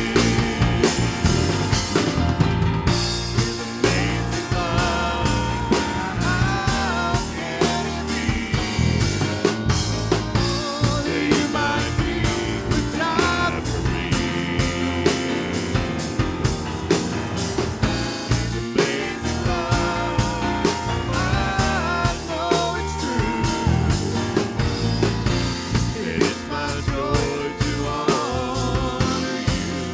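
Live church worship band playing full-on, with a drum kit (snare and bass drum) keeping a steady beat under a melodic lead line. No sung words come through, so it is an instrumental stretch of the song.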